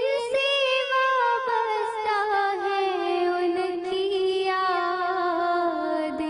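A girl singing a naat, drawing out one long ornamented line of sung vowel whose pitch wavers and slowly sinks.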